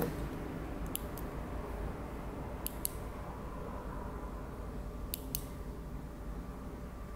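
The small push-button switch on a light-up ball necklace's battery box clicking three times, about two seconds apart, each press a quick double click of press and release, cycling the LED lights on and through their modes. A steady low hum runs underneath.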